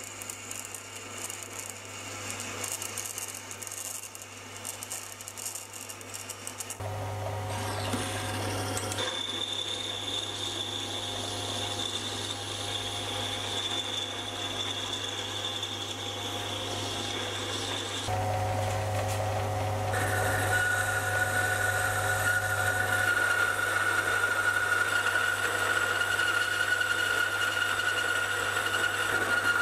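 Mini metal lathe drilling and then boring through a steel bar: the motor's steady hum under high whining tones and cutting noise. The sound changes abruptly several times, growing louder towards the end.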